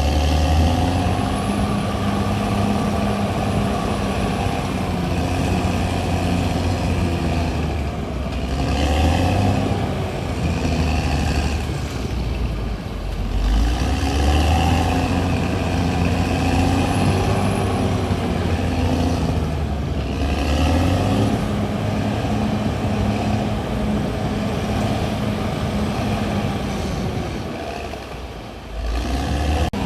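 CAT D6R XL bulldozer's diesel engine working under load, its pitch rising and falling as the machine pushes, easing off briefly twice, about halfway through and near the end.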